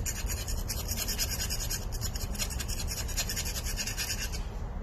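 Rapid back-and-forth scraping strokes of a hand tool over the combustion chamber surface of a Toyota 2TZ-FE cylinder head as it is cleaned up. There are several strokes a second, and they stop shortly before the end.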